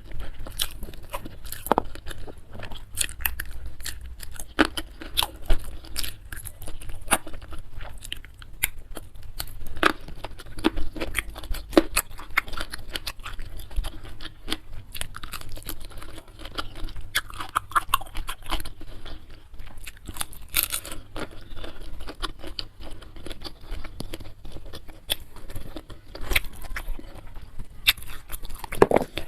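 Close-miked chewing and crunching of a rice meal, with many small, sharp mouth clicks and crunches in an irregular rhythm.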